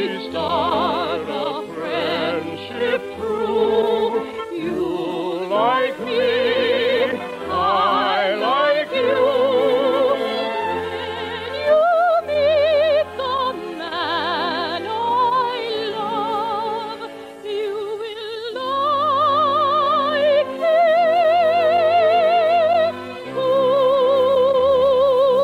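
Operetta singing with orchestra: a voice sings with wide vibrato over the accompaniment, with pitch slides, and holds long notes in the second half before breaking off at the end. The sound is dull and thin, cut off above the middle treble, as on an old radio transcription.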